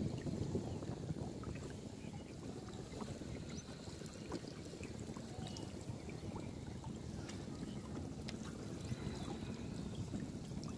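River water lapping and trickling around a large lift net as it is hauled up by its rope, with a few faint small knocks.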